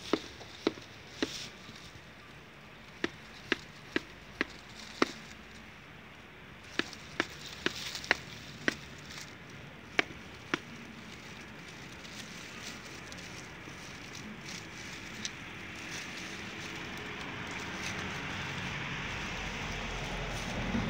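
Tortoise shells knocking together: one tortoise bumping its shell against another's in sharp, irregular knocks, about one or two a second, that stop after about ten seconds. A rising hiss follows toward the end.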